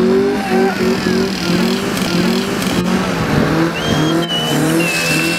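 Small motorcycle engine revved hard in quick repeated bursts, its pitch climbing with each one, as the bike spins and drifts in circles on concrete. A high tyre squeal comes in past the middle.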